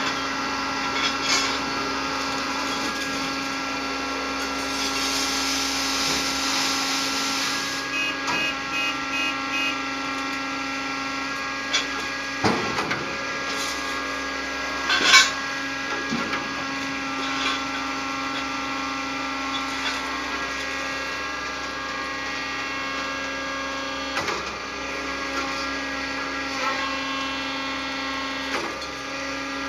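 Hydraulic scrap baler press running, its pump motor giving a steady hum, with a few sharp metal clanks and bangs, the loudest about fifteen seconds in. A short run of beeps comes about eight seconds in.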